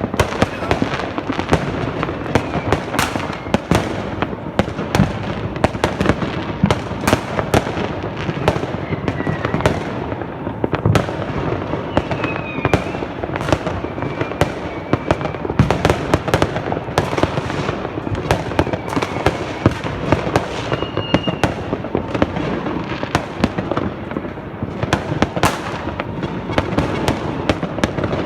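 Fireworks going off all around without a break: dense, overlapping bangs and firecracker reports over a steady crackling din, with a few short whistles of rockets.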